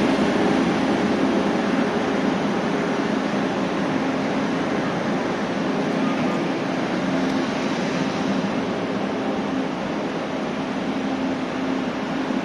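Taiwan Railways Chu-Kuang passenger cars of a diesel-hauled train rolling slowly past as it pulls out of the station: a steady mechanical hum with a low drone, easing slightly toward the end.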